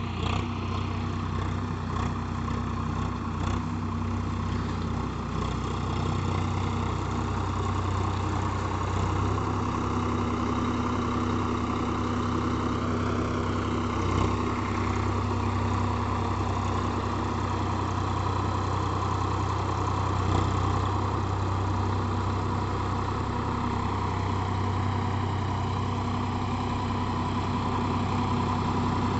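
Swaraj 744 XT tractor's diesel engine running steadily under load as it pulls a cultivator through the soil.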